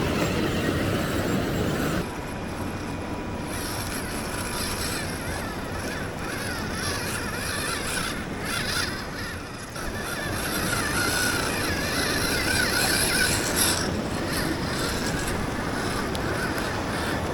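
Radio-controlled scale cars driving off-road: small electric motors whining, wavering up and down in pitch, over steady outdoor noise. The sound changes abruptly about two seconds in.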